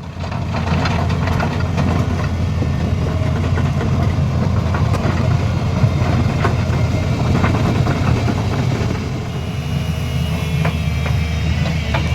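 Heavy diesel engine running steadily, with scattered short metallic knocks over it.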